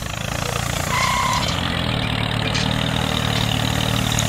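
Tractor engine running steadily with a low, even chug.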